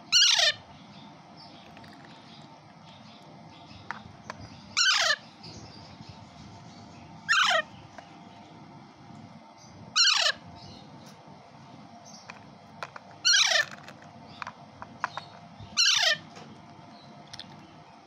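Kashmiri Alexandrine parakeet chick giving six loud, harsh calls, each about half a second long and falling in pitch, spaced a few seconds apart: a hand-reared chick calling at feeding time.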